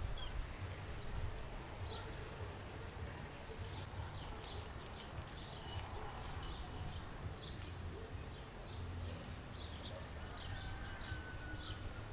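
Scattered short, high bird chirps over a steady low rumble.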